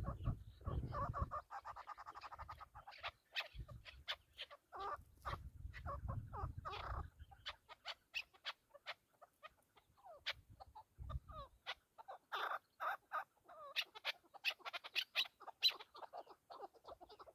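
Chukar partridges calling: a long run of short, sharp clucking 'chuk' notes that comes thicker and faster in the second half.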